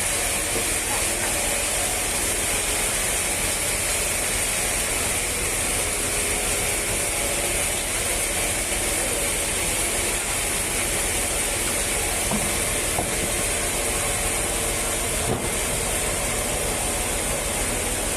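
Woodworking machinery running steadily with a loud, even hiss, holding unchanged with no pauses.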